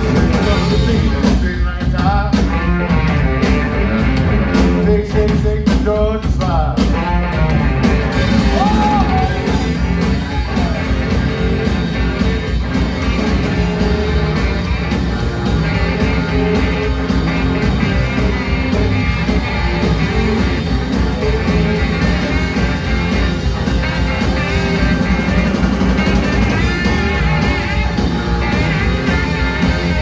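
A rock band playing live, with electric guitars, electric bass and drums in an up-tempo rock and roll number, recorded from the audience in a concert hall.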